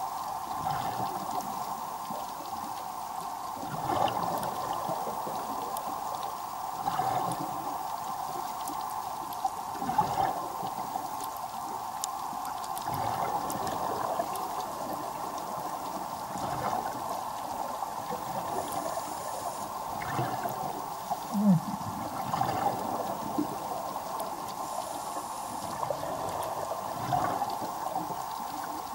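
Underwater sound of a scuba diver's regulator: exhaled bubbles gurgle up every three seconds or so over a steady watery hiss.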